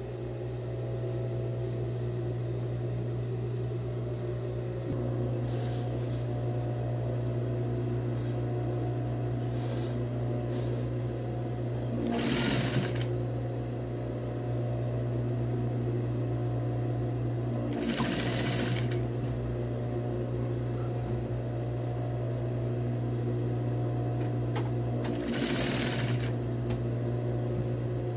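Industrial lockstitch sewing machine running, its motor humming steadily as it stitches down a folded fabric edge. Three short noisy bursts of about a second each come several seconds apart.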